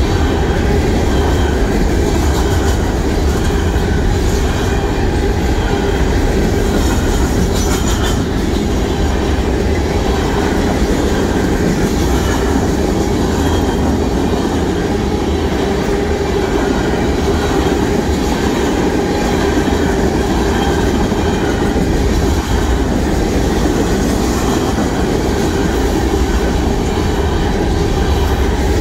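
Loaded mixed freight train of covered hoppers, tank cars and boxcars rolling past at close range. Its steel wheels make a steady, loud rumble and clatter on the rails, with no let-up as car after car goes by.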